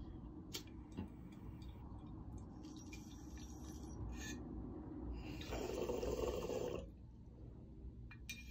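Water bubbling in a bong as smoke is pulled through it, a gurgle that grows louder, is strongest for just over a second and stops sharply about seven seconds in. A couple of short clicks come about a second in.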